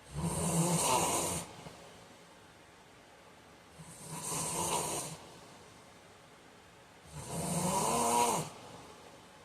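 A man snoring in his sleep: three loud snores about three and a half seconds apart, each lasting over a second, with quiet breathing between.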